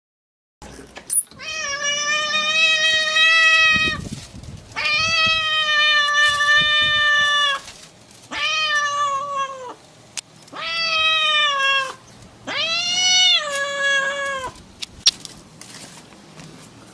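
A kitten meowing: five long, drawn-out meows in a row with short pauses between, the last one rising and then falling in pitch. A sharp tap sounds once near the end.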